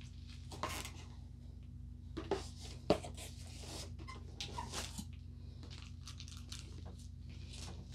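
Cardboard and paper packaging being handled: scattered short rustles and light knocks as a kit box and its paper inserts are moved about, the sharpest knock just under three seconds in, over a steady low hum.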